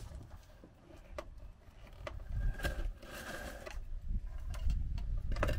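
A few sharp knocks and some scraping as parts are handled and fitted by hand, over a low rumble.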